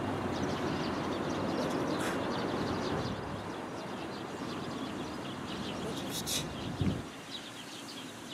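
Small birds chirping in quick repeated calls, clearest from about the middle on, over a steady rushing background, with a short low thump near the end.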